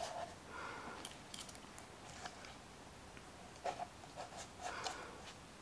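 Faint rustling of cardstock and painter's tape being handled and pressed down onto a metal cutting die, with a few light clicks and taps in short clusters.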